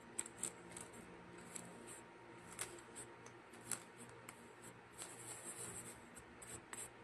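Plastic spoon scooping and scraping kinetic sand clay in a plastic tub: soft scratchy crunches with a few light clicks, and a longer run of scraping about five seconds in.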